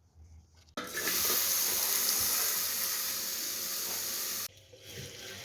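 A steady hiss that starts abruptly about a second in and cuts off suddenly near the end, leaving quieter background noise.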